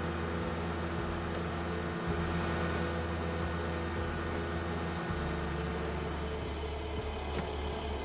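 Utility bucket truck's engine running steadily at idle, a continuous low hum.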